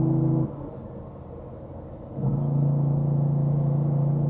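Tractor-trailer's diesel engine under engine braking, a steady pitched drone that cuts out about half a second in, drops to a quieter rumble, and comes back on a little over two seconds in at a slightly different pitch.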